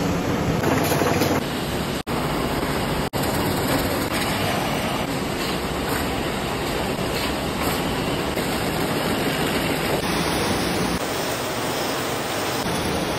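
Match-making and matchbox-filling machinery running: a loud, steady, dense mechanical noise with no clear beat. It cuts out briefly twice, about two and three seconds in.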